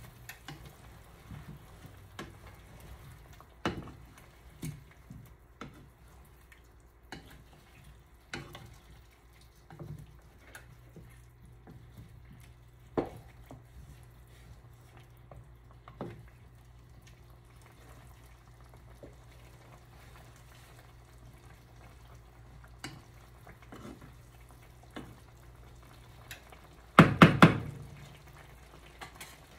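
Pot of menudo stew simmering, with scattered small clicks and knocks of a stirring utensil against the pot. Near the end comes a quick run of several loud knocks on the pot.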